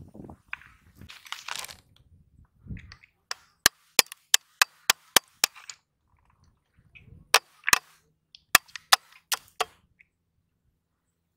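A sickle-like blade chopping and cracking freshwater snail shells against a PVC pipe: a quick run of about seven sharp cracks, a short pause, then about six more.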